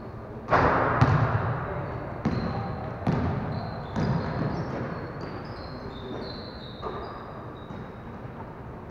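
A basketball shot banging against the basket about half a second in, then the ball bouncing on a hardwood gym floor a few times, with sneakers squeaking, all ringing in the echoing gym.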